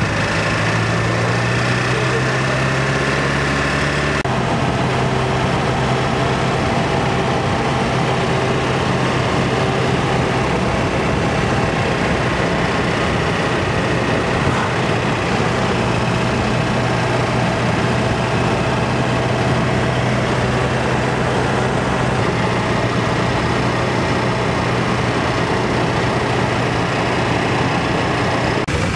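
Vehicle engine running steadily with road noise, heard from inside the cab while driving; the engine note changes about four seconds in.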